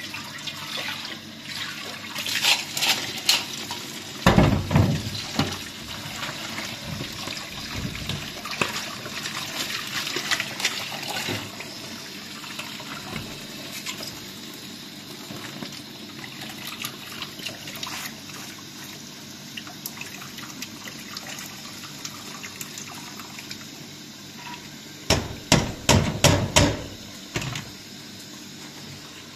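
Water trickling and splashing, with two clusters of sharp knocks and clatter, about three seconds in and again near the end.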